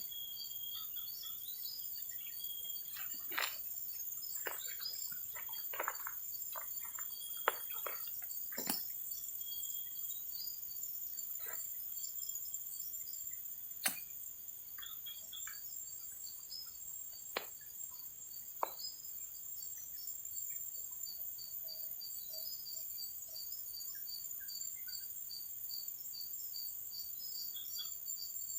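Insects chirring: a steady high-pitched drone with a rapid pulsing trill over it, plus a few sharp clicks, most of them in the first two-thirds.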